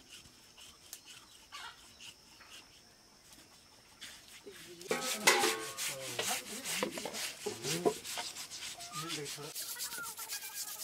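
Hands rubbing and scraping the wet skin of a pig carcass as it is cleaned, a scratchy rasping that grows much louder and denser about five seconds in.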